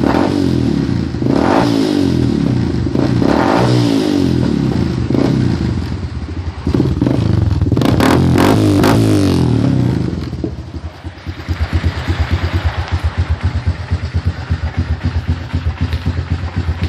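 Honda TRX250X ATV engine with a Two Brothers aftermarket exhaust, blipped through several short revs and then held up for a longer rev of about three seconds midway. It drops back to a pulsing idle for the rest of the time.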